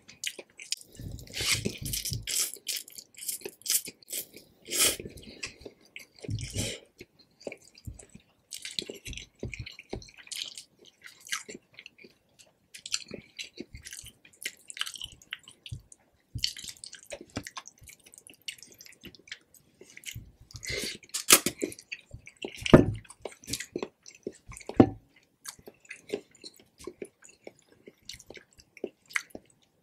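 Close-miked eating of fried instant noodles: wet chewing and smacking in irregular bursts, with a few sharper, louder clicks about two-thirds of the way in.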